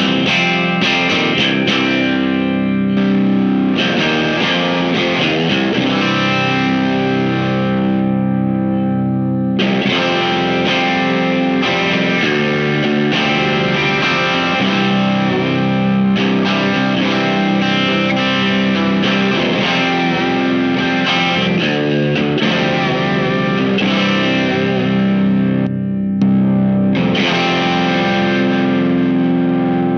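Electric guitar, a modified Jazzmaster tuned down to C standard, played through a Visual Sound Jekyll & Hyde dual-drive pedal: distorted, sustained chords and riffs, with a short break about 26 seconds in.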